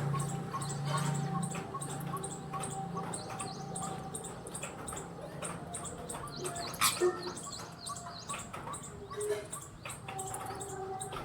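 Birds chirping: a steady stream of quick, high chirps over a low hum that is strongest in the first second or so. A sharp click comes about seven seconds in.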